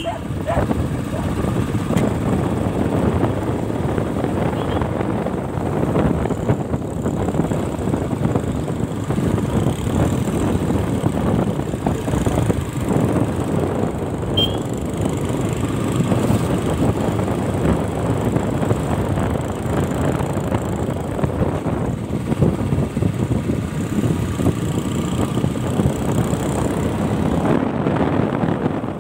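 Motorcycle running at road speed with wind buffeting the microphone, a steady rushing noise with the engine underneath.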